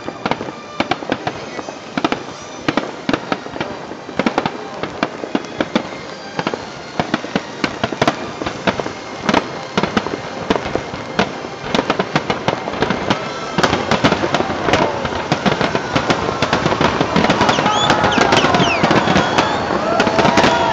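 Aerial firework shells bursting in rapid succession with dense crackling. The bangs grow denser and louder about two-thirds through, and onlookers' voices rise over them near the end.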